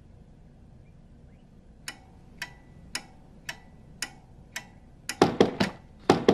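A clock ticking a little under twice a second, then loud, rapid knocking on a front door in two quick bursts near the end.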